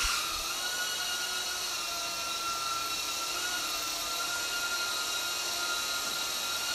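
Emax Babyhawk-R 112 mm micro brushless quadcopter hovering on a two-cell battery, its four motors and propellers giving a steady high-pitched whine with several held tones.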